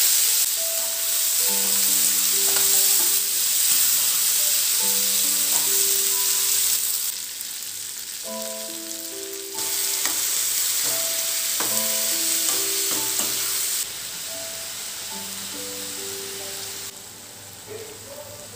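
Potato cubes and flat green beans sizzling in hot oil in a kadhai, with a spatula stirring and clinking against the pan now and then. The sizzle drops and returns in sudden steps a few times, and soft instrumental background music plays a slow melody underneath.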